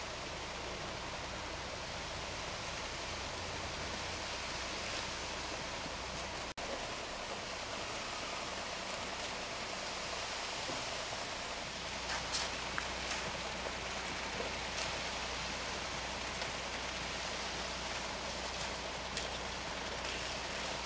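Concrete mixer truck discharging wet concrete down its chute onto a gravel bed, a steady rushing noise over the truck's low engine hum. From about halfway on come a few short scrapes and knocks from shovels spreading the concrete.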